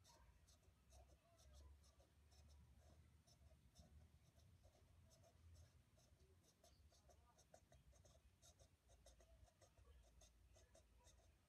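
Faint, quick scratching strokes, several a second: fingernails rubbing through a small dog's fur as its belly is scratched.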